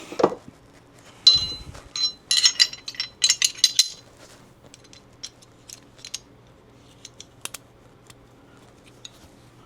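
Small metal pistol parts clinking and rattling as a Glock barrel and recoil spring assembly are handled and fitted into the slide. A knock about a second in, a cluster of sharp clinks over the next few seconds, then scattered light ticks.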